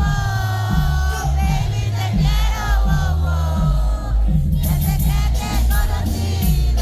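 Live concert music played loud through a venue's sound system: a steady heavy bass beat under a sung vocal melody, with crowd voices mixed in.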